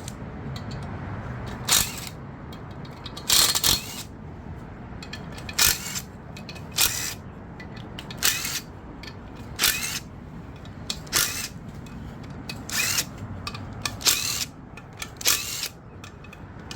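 A ratchet with a 10 mm socket loosening and backing out bolts on a Ford 5.4 V8 cylinder head, in short bursts about every second or so.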